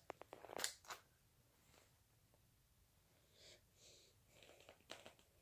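Mostly near silence, with a few light clicks and clacks of plastic GraviTrax marble-run pieces being handled and fitted in the first second, and a couple of faint soft sounds near the end.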